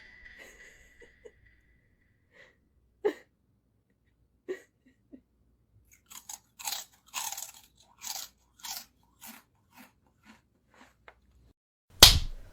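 Crinkling and crunching of a bag of chips as a cat paws into it, in short scattered crackles that come thick and fast for a few seconds in the middle. A loud sharp sound comes near the end.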